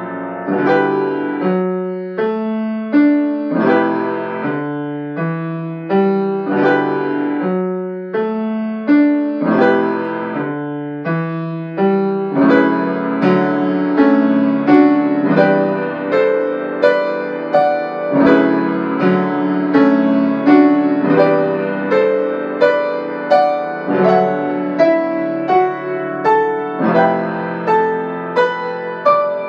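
Solo piano music: chords and melody notes struck one after another, each ringing and fading away.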